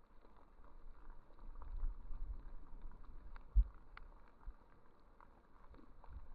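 Underwater ambience: a low rumble of water movement with scattered faint clicks, and a single dull thump about three and a half seconds in.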